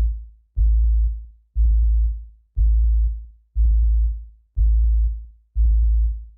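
Deep electronic bass hits from a drum-machine beat, one about every second and each dying away before the next, with no other instruments.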